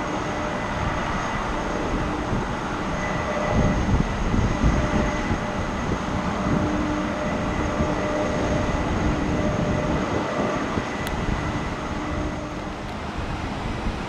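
Jet airliner's turbofan engines running: a steady rushing rumble with steady high whining tones on top, swelling slightly a few seconds in.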